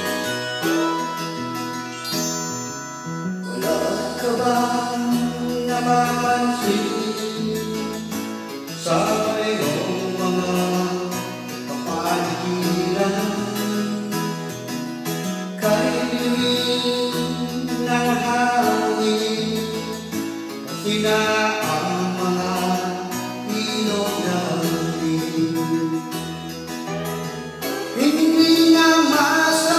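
A man sings a Tagalog song into a handheld microphone over recorded backing music, coming in after a short instrumental opening.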